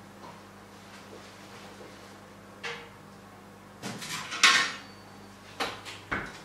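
Metal baking tray clattering onto an oven shelf about four seconds in, followed by two sharp knocks as the oven door is shut.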